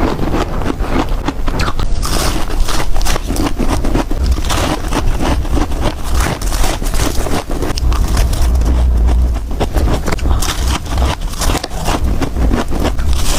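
Close-up crunching and chewing of soft, powdery frozen ice (humidifier frost or shaved ice): rapid crisp crackles as it is bitten and crushed between the teeth, one crunch after another with no break.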